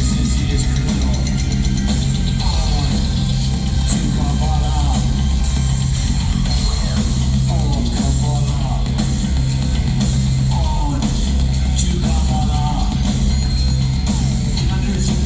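Industrial band playing live at concert volume: a heavy, steady bass and drums, with a processed voice coming in every couple of seconds.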